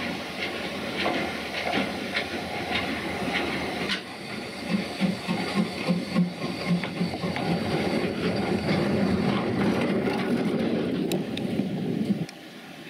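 Small Bagnall 0-4-0 saddle tank steam locomotive working slowly along the line, with a regular exhaust beat about three times a second over steam hiss and rail noise. The sound cuts off abruptly shortly before the end.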